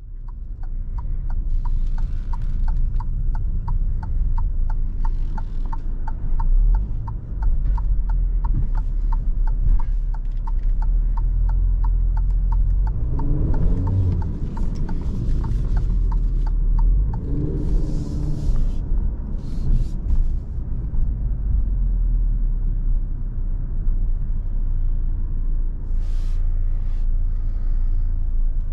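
Cabin sound of an Alfa Romeo Giulia Veloce's 2.0 turbo four-cylinder rolling slowly, a steady low engine and road rumble. Over it the turn-signal indicator ticks regularly, stopping about sixteen seconds in, and a couple of brief squeals come near the middle.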